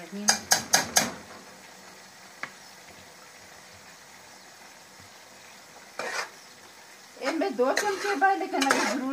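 A metal spoon scraping and knocking against a large aluminium pot as minced meat is stirred, four sharp strokes in the first second, then a faint steady sizzle of frying. A voice comes in near the end.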